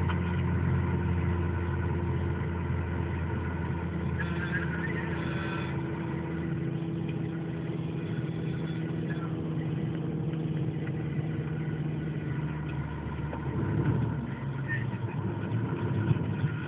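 A vehicle engine idling steadily, its note growing rougher and shifting briefly near the end.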